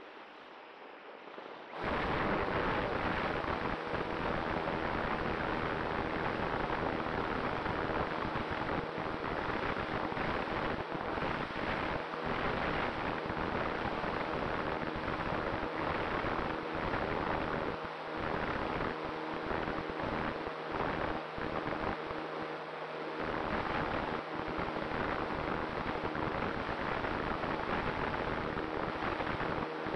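Onboard sound of a Multiplex Cularis electric motor glider in flight: a quieter rush of airflow, then about two seconds in the motor and folding propeller start and a loud, steady rush of propeller and wind noise runs on.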